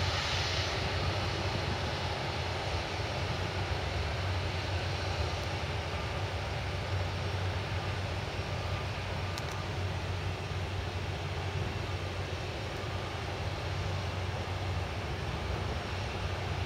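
Boeing 737-700's CFM56-7B turbofan engines running steadily at low power, heard from a distance as an even jet noise over a deep low rumble, with a brief brighter hiss in the first second.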